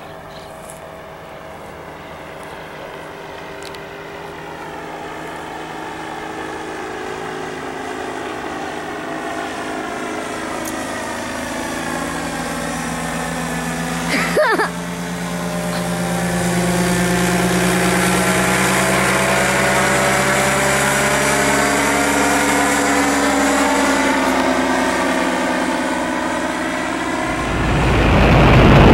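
Powered paraglider trike's engine and propeller droning overhead, growing louder as it comes closer, with its pitch bending slowly as it passes. There is a brief sharp click about halfway through. Near the end it gives way to loud wind noise over the engine, heard from aboard the trike.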